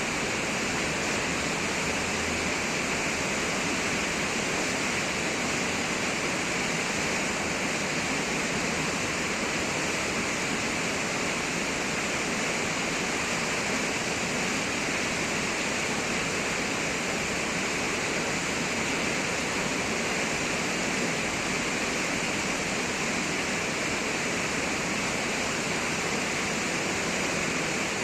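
Water pouring over the Düden Waterfall, a steady rushing noise that stays even throughout.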